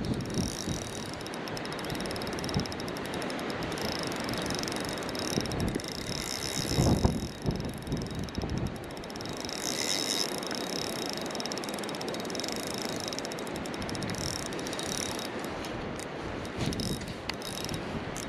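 Spinning reel ticking steadily as a hooked trout is played on ultralight tackle: fine, rapid clicks from the reel's gearing or drag. A dull bump comes about seven seconds in.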